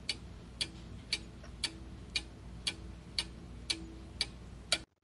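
Clock-ticking sound effect for a quiz countdown timer: ten even, sharp ticks, about two a second, that stop shortly before the end.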